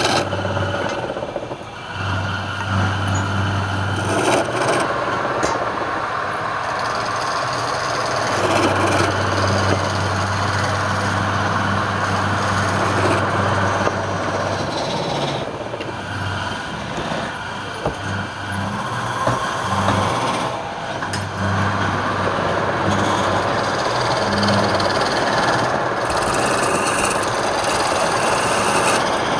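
Wood lathe running, its motor humming while a turning tool cuts into the spinning wood; the hum fades in and out as the cut changes.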